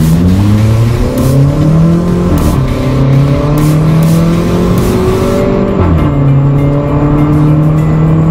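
Volkswagen Polo 1.2 GT TSI's turbocharged four-cylinder engine accelerating hard through an aftermarket performance exhaust, heard from inside the cabin. The pitch climbs, drops at a gear change about two seconds in, climbs again and drops at a second gear change about six seconds in.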